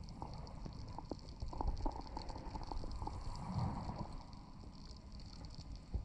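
Underwater sound through a camera held below the surface in shallow water: a muffled low rumble of moving water with scattered clicks and a steady fine crackle, and a swell of bubbling about three and a half seconds in.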